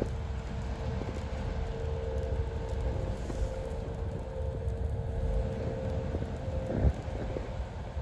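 Car driving on a wet road, heard from inside the cabin: a steady low rumble of tyres and engine with a steady hum that stops about three-quarters of the way through, and a single thump shortly after.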